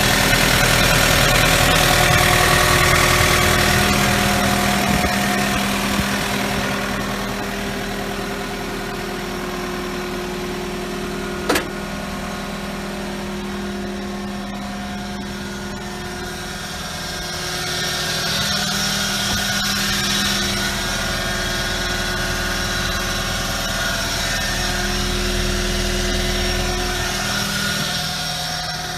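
Diesel engine of a 2015 John Deere 319E tracked skid steer running steadily, louder in the first few seconds and again in the last third. There is a single sharp click near the middle.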